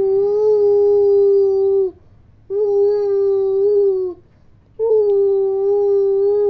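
Small plastic toy horn blown by a toddler: three long notes of one steady pitch, each lasting about one and a half to two seconds with short breaks between, the pitch sagging slightly as each breath runs out.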